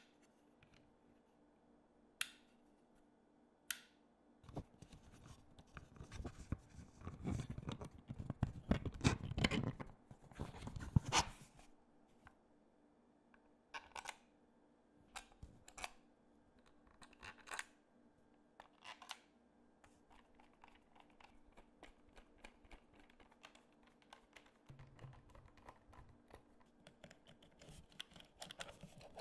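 Handling and workbench noises: two sharp clicks, then several seconds of rustling and scraping, then scattered clicks and taps.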